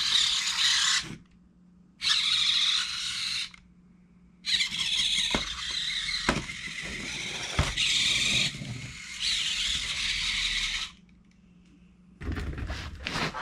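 Robosen Optimus Prime robot toy's servo motors whining in bursts as it moves: two short runs, then a long one of about six seconds with a few knocks. Music starts near the end.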